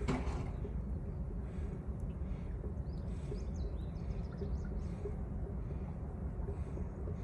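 Steady low background rumble, with faint high chirps like birds a few seconds in.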